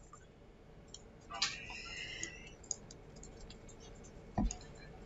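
Computer mouse clicking now and then, quietly, with a short squeak about a second and a half in and a low thump near the end.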